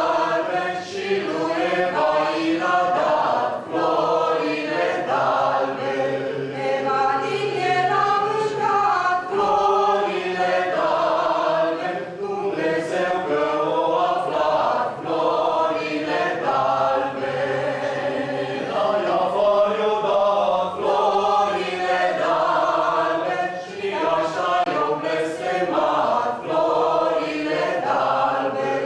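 Group of folk singers, women's voices to the fore, singing a Romanian Christmas carol (colindă) together.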